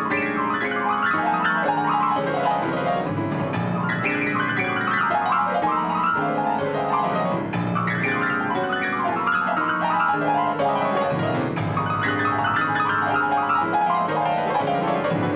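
Live jazz: an acoustic grand piano playing a busy run of many short notes, with upright bass and drums behind it.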